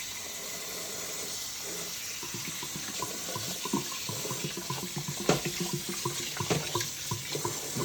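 Kitchen tap running steadily into a sink, with a few light knocks scattered through it.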